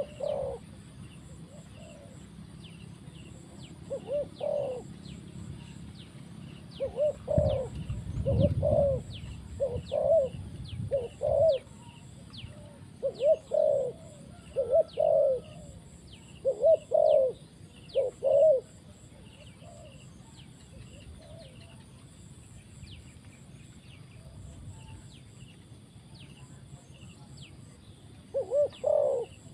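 Decoy spotted dove cooing in short phrases of two or three notes, repeated again and again, then a pause of about ten seconds and one more phrase near the end. A faint, steady high buzz and quick high chirps run underneath.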